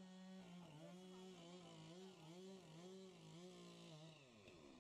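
Two-stroke chainsaw cutting into a hollow zelkova log, its engine note dipping and recovering about twice a second as the chain loads in the cut. About four seconds in, the pitch drops away.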